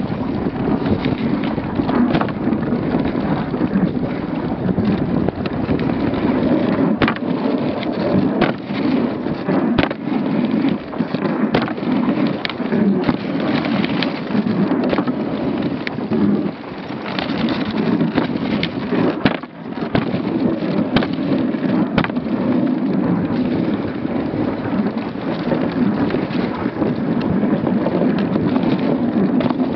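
Dog sled runners rumbling and scraping steadily over snow while a husky team pulls it, with scattered sharp knocks and rattles from the sled over bumps.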